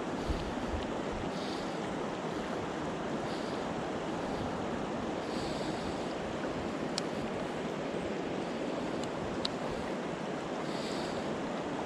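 Mountain stream water rushing steadily, with a couple of faint brief clicks near the end.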